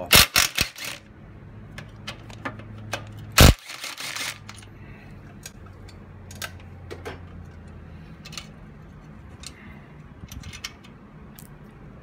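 Cordless power driver with a socket run in several short bursts in the first second, spinning out the bolt on a motorcycle exhaust slip-on muffler's mounting bracket. About three and a half seconds in comes one loud sharp knock, followed by scattered light metal clicks.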